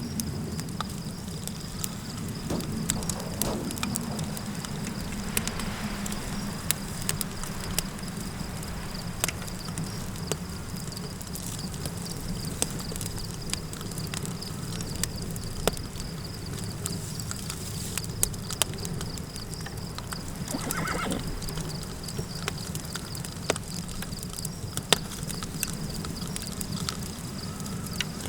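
Campfire crackling over a low steady wind, with a constant high chirring of insects. A horse whinnies briefly twice: a few seconds in, and more strongly about two-thirds of the way through.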